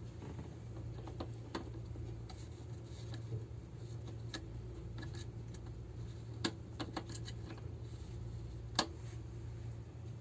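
Scattered light clicks and taps, a few seconds apart, with a quick cluster about two thirds of the way through and the sharpest near the end, over a steady low hum.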